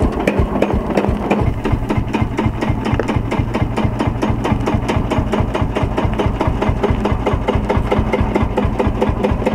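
1949 Field Marshall Series 2 single-cylinder two-stroke diesel running steadily in gear, its exhaust beating in an even rhythm of several beats a second as the tractor rolls along on its own.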